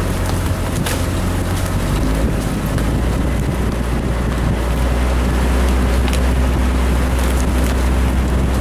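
A small engine running steadily as an off-road vehicle rides along a dirt trail, a low drone under wind noise on the microphone. A brief sharp knock comes about a second in.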